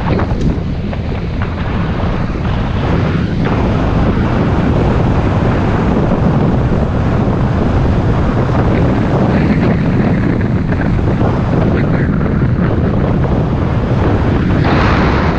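Wind buffeting the microphone of a camera mounted on a moving road bike: a steady low rushing rumble, with a stronger gust near the end.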